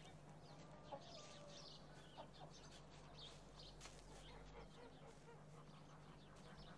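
Faint barn ambience: chickens clucking softly over a low steady hum.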